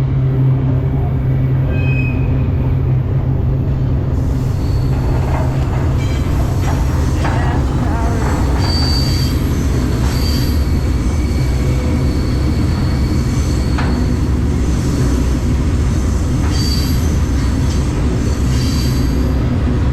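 Freight train rolling, heard from aboard one of its cars: a steady heavy rumble with short high wheel squeals several times and a few clanks.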